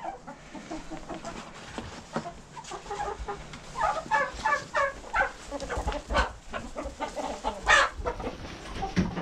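Flock of chickens clucking close by, with a flurry of quick clucks in the middle and one loud squawk near the end.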